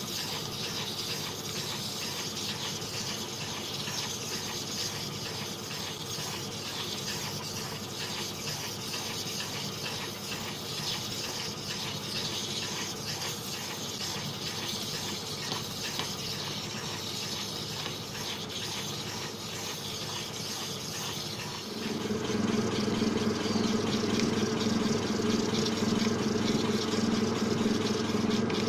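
Flat lap running wet while a quartz egg is ground against a spinning diamond-coated lapping disc: a steady rushing, gritty hiss of water and stone on the disc. About 22 seconds in, the sound steps up louder and a steady motor hum comes in, with the work now on a 1200-grit disc.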